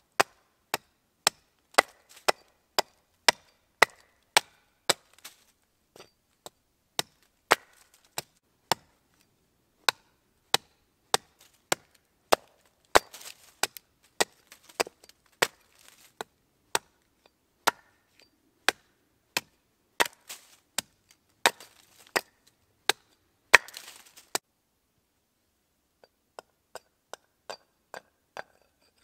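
Small 600 g Urnieta forest axe chopping into a wooden blank braced on a stump, hewing it flat into a board: sharp, even blows about two a second that stop about 24 seconds in. A few much lighter taps follow near the end.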